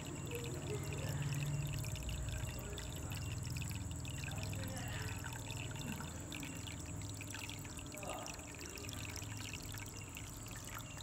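Water from an aquarium filter pouring and splashing steadily into a small goldfish tub, with a steady high-pitched whine underneath.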